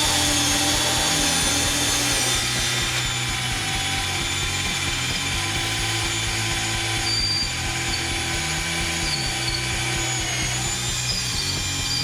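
Parkside cordless drill boring a 6 mm hole about 5 cm deep in second gear, a steady motor whine with the bit cutting. The pitch drops slightly near the end.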